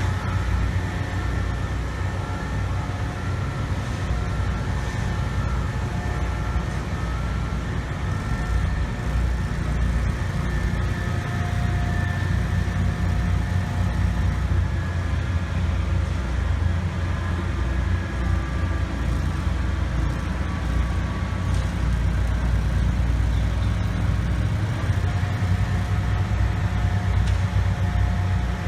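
Steady low rumble of heavy engines at a construction site, with faint whining tones that come and go.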